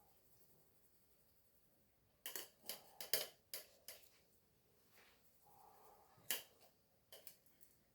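Flour being sifted into a mixing bowl: a quick run of light taps and clicks from the sieve and kitchen utensils starting about two seconds in, with a few more near the end.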